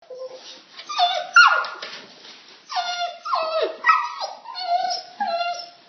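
Puppy whining and yipping: a quick string of about nine short high calls, each falling in pitch.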